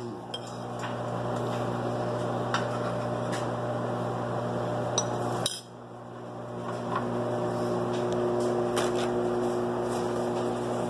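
A steady machine hum with a noisy wash beneath it, dipping briefly about five and a half seconds in, with a few light clicks of a spoon against the pot as the chicken is stirred into the curry.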